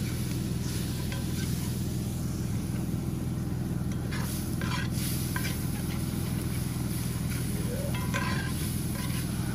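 Milk sizzling in a hot cast iron skillet over a campfire as it is stirred into a butter-and-flour roux with a spatula, with scraping strokes about four and five seconds in and again near the end. A steady low mechanical hum runs underneath.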